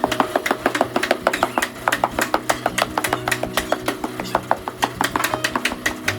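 A rapid, even series of sharp taps, about five a second, over a steady low hum.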